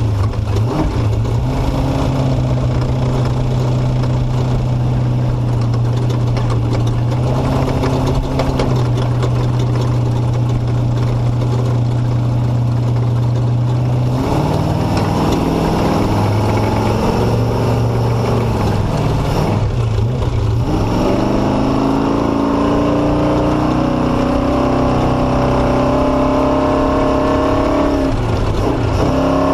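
Motorcycle engine running under way, with a steady rushing noise over it. The engine note holds steady for about half the time, changes and dips, then climbs in pitch as the bike speeds up toward the end.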